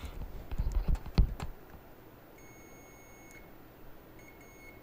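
Knocks and clicks of handling as multimeter test leads are set on a laptop motherboard, then a digital multimeter's continuity beeper sounding: one steady beep about a second long, then short broken beeps near the end. The beep marks a short circuit on the board.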